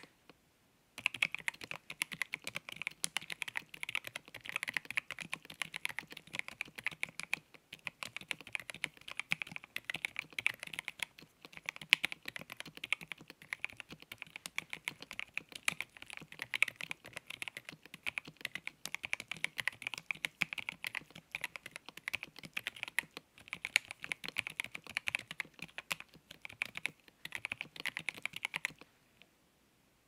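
Typing on a FancyAlice66 mechanical keyboard with stock pre-lubed Gateron North Pole linear switches, lubed screw-in stabilizers and transparent PC keycaps: a fast, continuous run of keystrokes with a few short pauses. It starts about a second in and stops about a second before the end.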